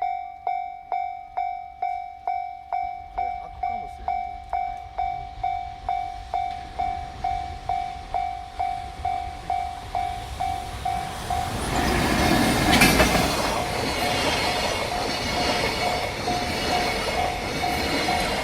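Japanese level-crossing warning bell dinging steadily, a little over twice a second. About 11 to 12 seconds in, a freight train arrives: an EF210 electric locomotive and container wagons running over the crossing with loud rumbling and wheel noise, the bell continuing over it.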